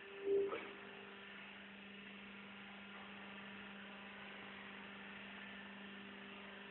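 Steady low machine hum from a hydraulic rice-husk bagging baler, with a brief louder tone about a third of a second in.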